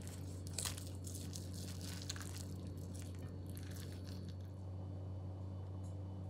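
Crisp crunching and crinkling handling sounds, dense for the first few seconds and then only now and then, over a steady low electrical hum.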